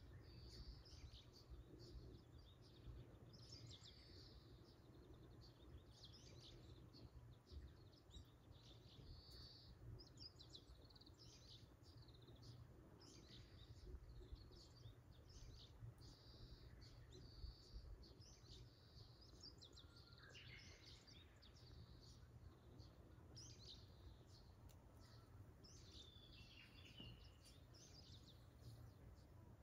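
Faint birdsong: short high chirps, about one or two a second, repeating throughout over a low steady outdoor rumble.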